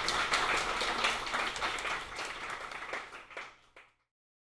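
Small audience clapping, fading about three seconds in and then cut off abruptly just before the end.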